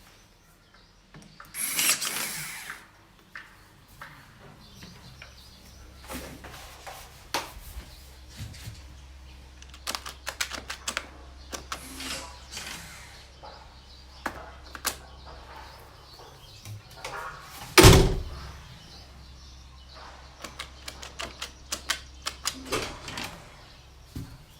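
Mechanical clicks and knocks of a door and its 3D-printed smart lock mechanism, with a short whirring burst about two seconds in and one loud knock partway through.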